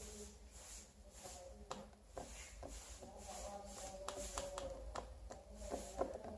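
Fingers handling thin wires and a plastic terminal connector of a touch-sensor module: faint rubbing and rustling with scattered small clicks, the sharpest about six seconds in.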